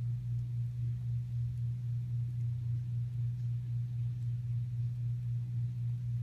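A steady low hum with one unchanging low tone.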